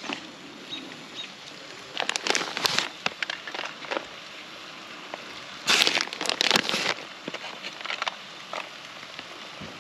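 Plastic bag of shredded cheddar crinkling as it is handled, in two bursts about two and six seconds in, with faint small rustles between.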